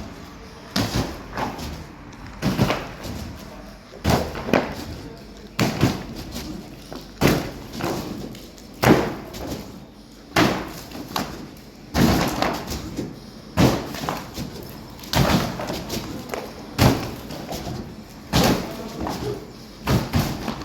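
Sand recycling plant machinery running, with a heavy clunk repeating very regularly about every second and a half over a steady background.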